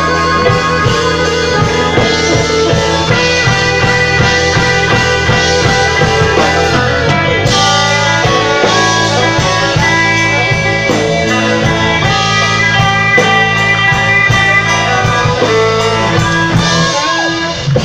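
Live blues band playing an instrumental passage, with electric guitar over a drum kit keeping a steady beat.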